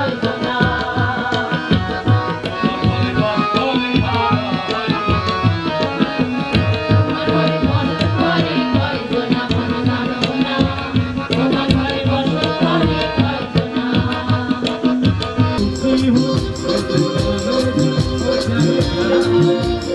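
Loud music with steady drumming, played over a PA sound system whose four 1200-watt tops are driven by an N-Labs X6 four-channel class D amplifier. The music changes abruptly about 16 seconds in.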